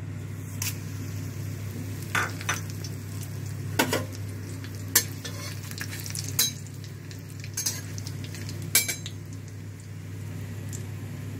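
Nigella seeds, bay leaves and dried red chillies sizzling in hot oil in a steel kadhai for the tempering (tadka). A steel spatula stirs them, scraping and clinking against the pan about eight times over a steady low hum.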